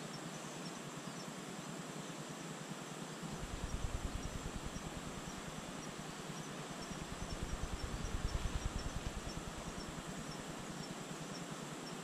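Outdoor ambience: wind buffeting the microphone in low rumbling gusts, starting suddenly a few seconds in and strongest twice, over a steady hiss with faint, evenly spaced high chirps, typical of an insect.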